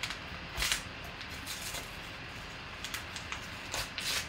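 A yellow paper envelope being torn and pulled open by hand: a handful of short rips and crinkles, the loudest about four seconds in.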